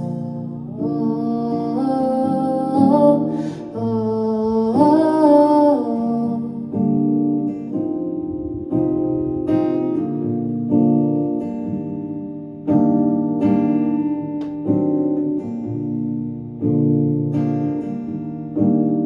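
Acoustic guitar playing plucked accompaniment under a sung melody that holds and glides for about the first six seconds. The voice then stops and the guitar carries on alone with a steady run of plucked notes.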